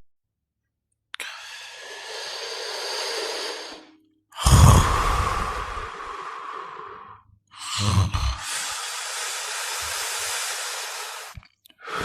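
A person snoring: after about a second of silence, a long breathy exhale, then two deep snorting snores about three seconds apart, each trailing off into a long hissing breath.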